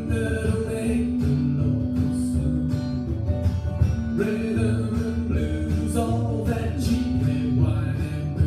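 Acoustic blues band playing an instrumental break: plucked double bass, strummed acoustic guitars and drums, with long held, bending notes over them from a harmonica cupped against the vocal microphone.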